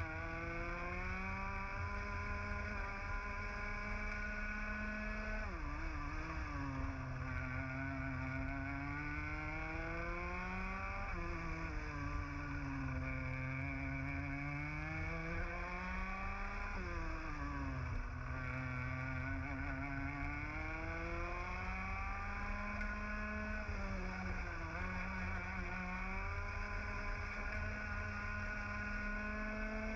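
Racing kart's 125cc two-stroke TAG engine at full racing pace, heard onboard: the engine note climbs steadily down each straight, then drops sharply as the driver lifts and brakes for a corner, three times about five to six seconds apart, with a couple of smaller dips later before it climbs again.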